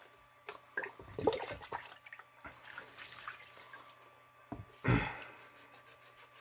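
Liquid sloshing and splashing as plastic shotgun stock and forearm parts are lifted, rubbed and shifted in a shallow tub of isopropyl alcohol, with scattered small clicks and one louder thump about five seconds in.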